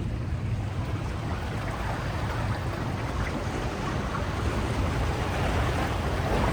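Atlantic Ocean surf washing onto the beach, a steady noisy rush with wind rumbling on the microphone, swelling a little near the end.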